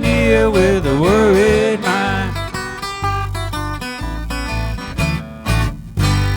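Small acoustic string band with guitar and bass closing a country-blues song. A long bending note is held over the band for about two seconds. Then come picked string notes and a final chord, struck about six seconds in and left ringing.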